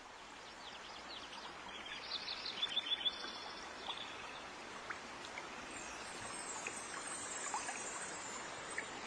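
Birds chirping over a steady rushing, stream-like noise, a faint nature ambience that grows slowly louder. The chirps come in quick clusters in the first few seconds, then only now and then.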